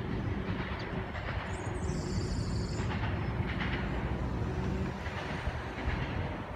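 CSX freight train running past the crossing, a steady low noise of rail traffic, with a brief high squeal about one and a half seconds in.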